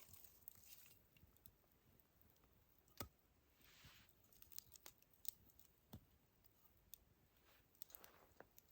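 Faint, scattered snaps and clicks from a wood campfire, with sharper ones about three and six seconds in and a couple of brief soft rustles.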